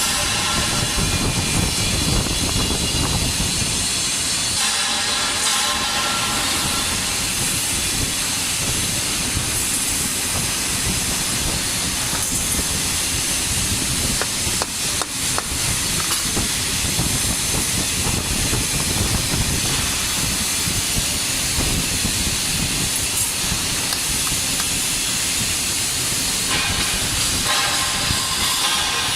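TIG welding arc from an Omega 350T inverter welder, hissing steadily with a fine crackle.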